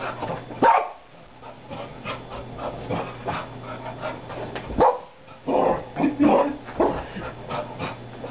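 A pet dog barking: one bark about a second in, another near five seconds, then a quick run of four or five barks, with panting between.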